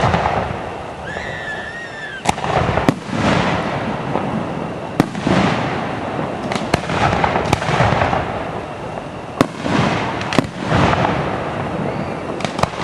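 Aerial fireworks shells bursting close overhead: about ten sharp bangs at uneven intervals, some in quick pairs, each followed by a rolling rumble and crackle.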